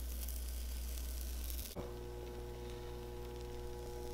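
Steady low electrical hum, with faint crackling of pancake batter on a hot griddle. A little under halfway through, the hum changes abruptly and a few steady higher tones come in.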